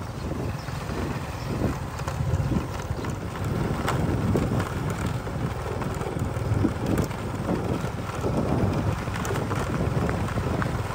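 Wind rumbling on the microphone, with irregular knocks and taps scattered throughout.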